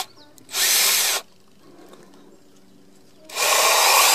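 Ridgid 18V cordless drill on its high torque setting driving a self-drilling screw into wood: a short burst of running about half a second in, then a longer steady run starting near the end.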